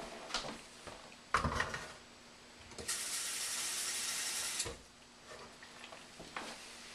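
Kitchen tap running for about two seconds, filling a blender jar packed with kale with water. Before it, about a second and a half in, comes a sharper knock, the loudest sound.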